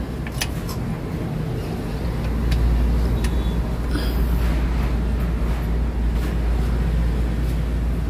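Steady low engine rumble with a faint hum, like a motor vehicle's engine running, getting a little louder from about two and a half seconds in, with a few light clicks over it.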